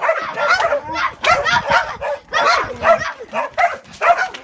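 Dogs yelping and barking in a fast, continuous string of short high calls, as in a dog fight or scuffle.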